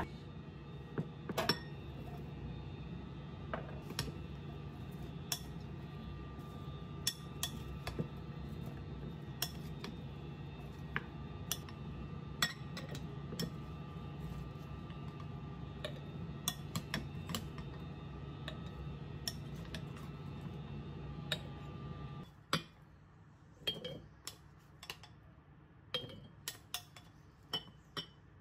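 Cutlery and dishes clinking in irregular light knocks, over a steady hum that cuts off suddenly about 22 seconds in. The clinks go on after the hum stops.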